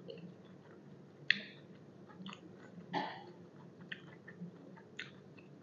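Close-miked chewing of crunchy food, with moist mouth clicks; a sharp crunch about a second in and a louder bite about three seconds in.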